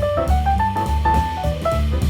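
Background jazz music: a melody of held notes over a bass line, with a drum kit keeping time.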